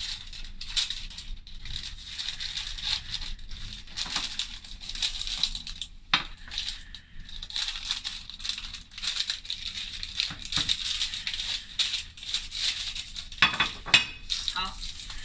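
Baking paper rustling and crinkling as it is handled, an irregular crackle that runs on throughout. There is a sharp knock about six seconds in, and a few louder knocks near the end.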